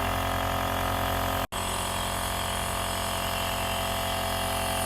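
Compressor nebulizer's small electric motor running with a steady hum, cutting out for an instant about a second and a half in.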